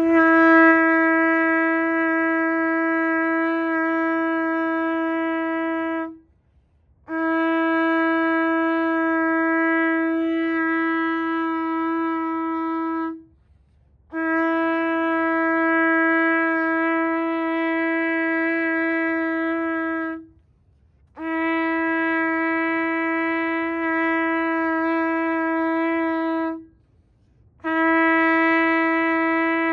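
Shofar (ram's-horn trumpet) blown in long, steady blasts, each held on one unchanging note for about six seconds, with a short breath between them: five blasts in all, the last still sounding at the end.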